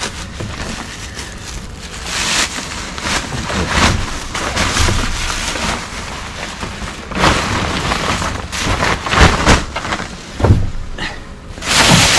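Plastic bags and rubbish crinkling and rustling as a dumpster is rummaged through, in loud, uneven bursts with occasional dull knocks from handling.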